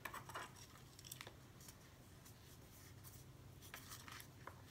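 Faint handling of a small die-cut cardstock piece: a few light clicks and brief rubbing as it is folded along its score lines and creased with a bone folder.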